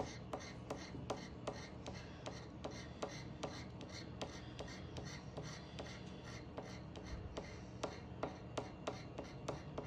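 Scratch-off lottery ticket being scratched: short, faint rasping strokes across the latex coating, about three a second, as the symbols are uncovered.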